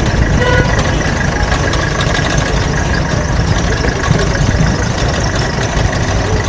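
Busy street ambience: a steady low rumble of idling and passing vehicle engines with a general street din.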